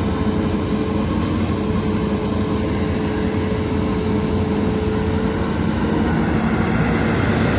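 Hitachi Zaxis hydraulic excavator's diesel engine running steadily under working load, heard close up, with a thin steady whine over it that stops about six seconds in.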